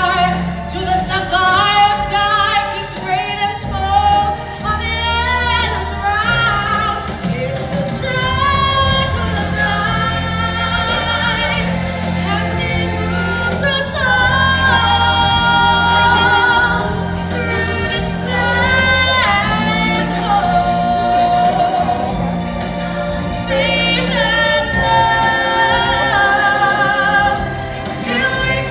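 A choir singing with vibrato over instrumental backing with sustained bass notes, in a live musical stage number.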